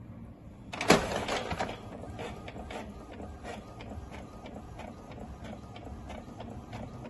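Desktop inkjet printer printing a page: a loud clunk about a second in, then a steady run of mechanical clicks and ticks, about three a second, as the sheet is fed out.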